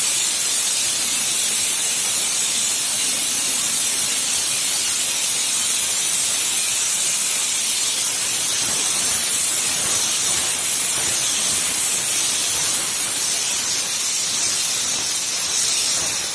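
Aluminium wire metallizing spray gun hissing steadily as it sprays an aluminium coating onto steel. The hiss is loud and unbroken.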